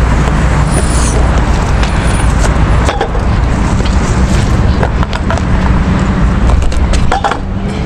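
Wind buffeting the action camera's microphone over the rough rolling noise of scooter wheels on asphalt, with scattered sharp knocks.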